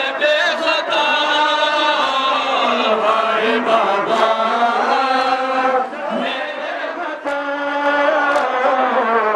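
Men's voices chanting a Shia nauha, a Muharram mourning lament, in a slow, drawn-out melody. A few sharp slaps are heard, which fit chest-beating (matam).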